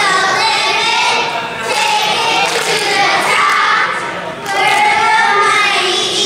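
A group of high young voices chanting together in drawn-out phrases, with two short breaks between the phrases.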